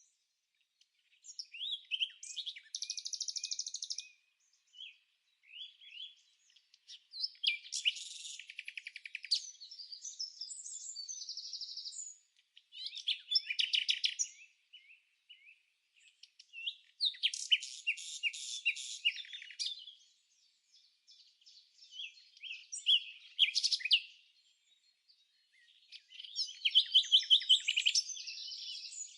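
A songbird singing high-pitched phrases of rapid trills and chirps, each a few seconds long with short pauses between them.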